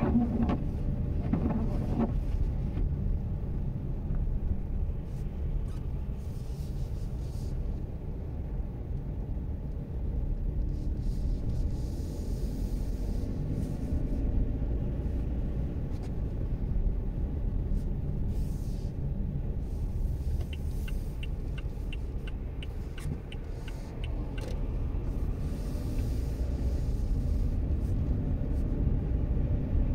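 Haval Jolion on the move, a steady low rumble of engine and road. Past the middle, a run of quick ticks, about three a second, lasts a few seconds.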